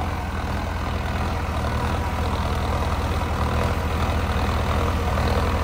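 Diesel engines of two 4WD tractors, a Mahindra Arjun Novo 605 DI and a New Holland 3630 TX, running steadily under load side by side while pulling cultivators in four-wheel drive. A low, even engine drone grows slightly louder as they come closer.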